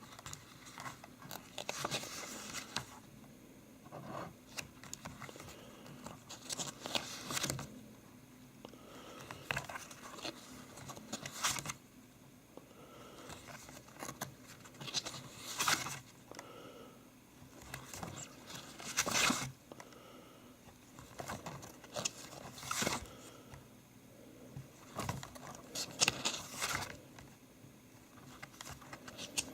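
Glossy storybook pages being turned one after another, a short papery swish every two to four seconds.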